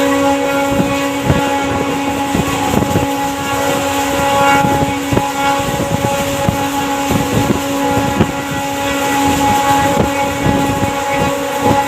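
Passenger train of ICF coaches passing at speed: a run of sharp clicks from the wheels striking rail joints over a steady pitched hum, with wind rushing past the microphone.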